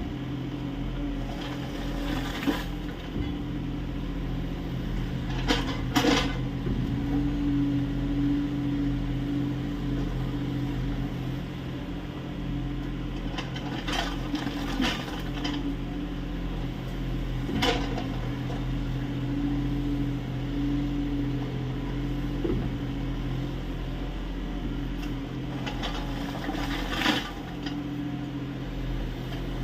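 Kubota U30 mini excavator's diesel engine running steadily under hydraulic load while digging earth, with sharp knocks and clanks every few seconds from the bucket and steel working.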